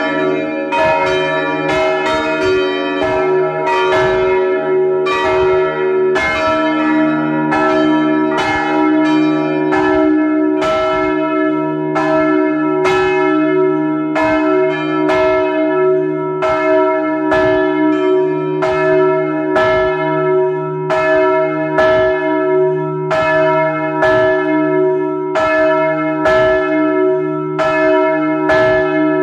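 Full peal of swinging church bells heard from inside the belfry: several bells strike over one another at uneven intervals, about two strokes a second, each stroke leaving a long ringing hum. It is loud throughout.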